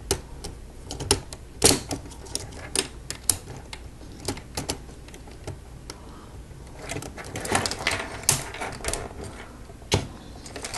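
Hard plastic Lego Technic pieces clicking and clattering as they are handled and pressed together, with a denser run of rattling clicks about seven to nine seconds in.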